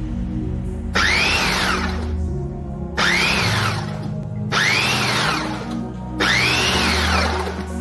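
Background music: an electronic track with low sustained notes and a noisy swoosh four times, each with a tone that rises and falls.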